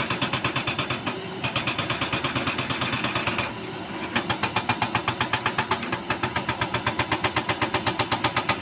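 A powered road-work impact machine hammering rapidly, about eight blows a second, stopping briefly twice.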